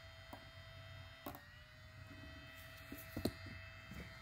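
Battery spot welder's steady electrical hum and thin whine, with a few sharp snaps as weld pulses fire through a nickel strip on an 18650 cell. The loudest pair of snaps comes about three seconds in.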